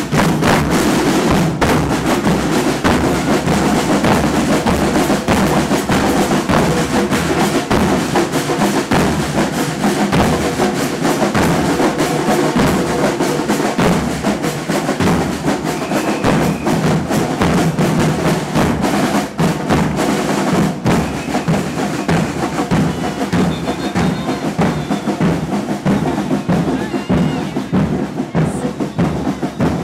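Carnival drum troupe playing live: bass drums and snare drums keeping up a loud, dense, unbroken beat with rolls.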